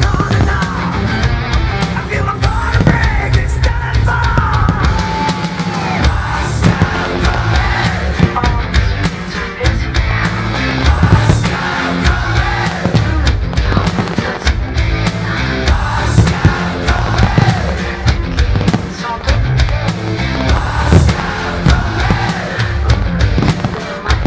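Loud heavy rock music with a pounding beat.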